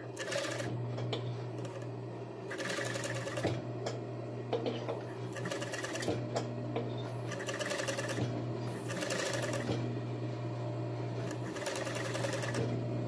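Industrial sewing machine with a tape binder attachment stitching binding tape onto the edge of a swimsuit piece, running in about six short bursts of roughly a second each as the fabric is guided round. A steady low hum runs underneath.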